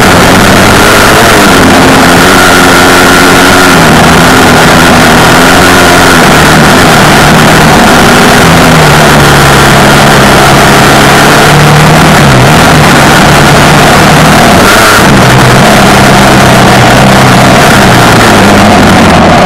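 An off-road vehicle's engine runs under changing throttle, its note stepping up and down every few seconds, beneath a loud steady rushing noise.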